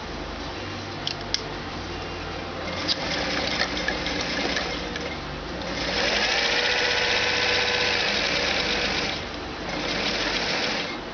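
Electric sewing machine stitching fabric. A few light clicks come in the first seconds. Then the motor speeds up with a rising whine and runs fast for about three seconds, stops briefly, and runs again near the end.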